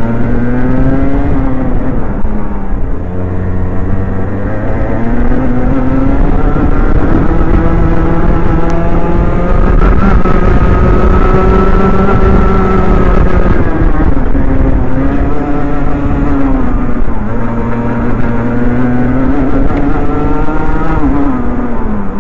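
Rotax Mini Max 125cc two-stroke kart engine at racing speed, revs climbing on each straight and dropping sharply for the corners, the longest climb through the middle. The engine had a misfire that a new spark plug improved but did not cure, and the owner says it was still there on this run.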